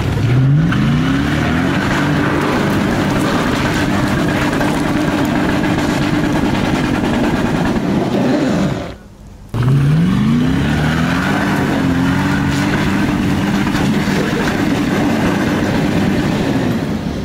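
Lexus LX570's V8 revved up hard and held at high revs while its wheels spin and dig in loose rock, unable to climb without front and rear lockers. The revs fall away briefly about nine seconds in, then climb quickly again and hold.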